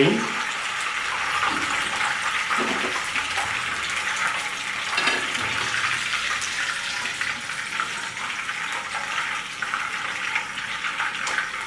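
Hot oil sizzling steadily around masala-coated chicken leg pieces frying in a pan, the pieces fried through. A few soft knocks of a plastic spatula come as the pieces are turned and lifted out.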